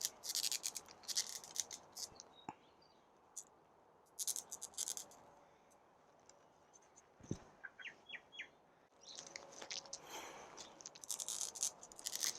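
Faint crackling and rustling from hands handling a potted succulent, coming in short bursts several times, with a low thump about seven seconds in. A few quick chirps, likely a small bird, come just after.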